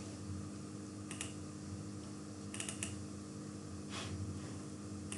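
A few faint clicks from a computer keyboard and mouse, about one a second, with a double click near the middle, over a steady low electrical hum.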